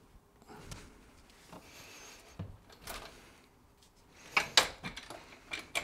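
Clicks and knocks from a road bike frame and its removed rear wheel being handled and set down, with a cluster of louder knocks about four and a half seconds in and a few more near the end.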